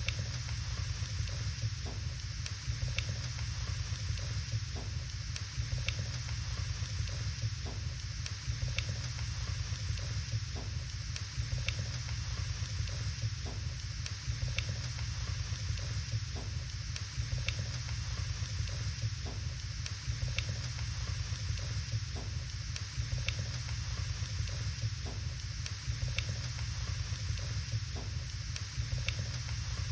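Wood burning in a fireplace: a steady hiss with small crackles and pops scattered through it, roughly one a second, over a low steady rumble.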